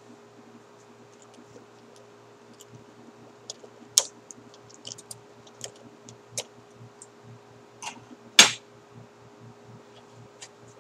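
Thin plastic water bottle being picked up and handled: scattered clicks and crinkles of the plastic, a sharp click about four seconds in and the loudest crackle about eight seconds in, over a steady low hum.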